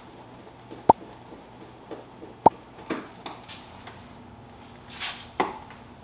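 Scattered sharp clicks and knocks, the two loudest with a brief ring, from a screwdriver and screws being worked against the plastic refrigerator door while its new door seal is screwed on, with a short rustle near the end.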